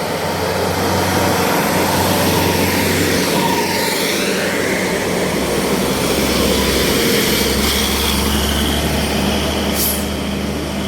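Tour bus's diesel engine running close by as it drives past, a steady heavy drone with road noise; its engine note drops lower about halfway through.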